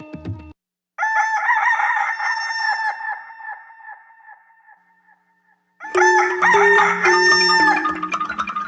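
A rooster crowing about a second in: a long, rough crow that trails off slowly. A second crow comes at about six seconds, over music with a steady bass line.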